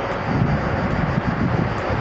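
Wind buffeting the camera's microphone, a low uneven rumble.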